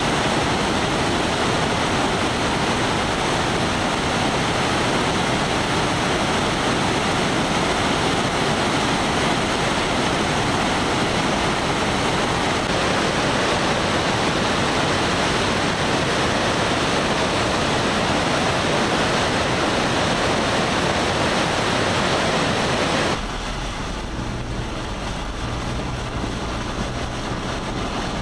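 Flood-swollen creek rushing through white-water rapids: a loud, steady rush of water. Near the end it gives way to a quieter scene with a low, steady vehicle engine hum.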